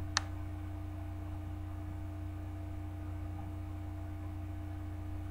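Steady low electrical hum with no other activity, broken once by a short, sharp click just after the start.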